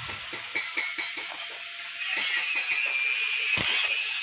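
Small metallic clinks and taps of cylinder-head nuts, washers and a socket being handled on the head studs of a Bajaj Platina 100cc engine, with a sharper click near the end. A steady hiss comes in about halfway through.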